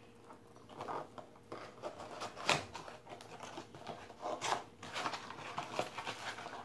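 Cardboard trading-card blaster box being torn open by hand, then the plastic-wrapped card packs inside crinkling as they are pulled out: a run of short rips and rustles, loudest about two and a half and four and a half seconds in.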